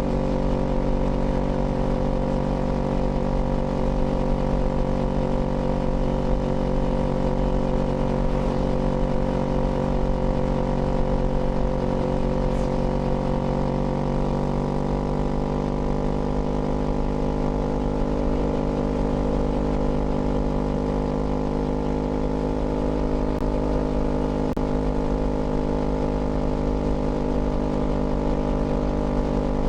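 Kawasaki Z400's parallel-twin engine running steadily while riding at an even cruise, its pitch rising slightly about halfway through.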